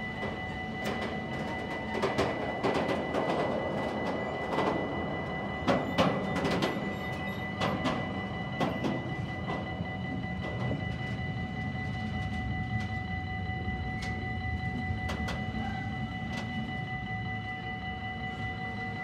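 Freight wagons rolling past close by: a steady rumble of steel wheels on the rails, with sharp clattering knocks from the wheels, heaviest in the first half. A steady high-pitched tone runs underneath throughout.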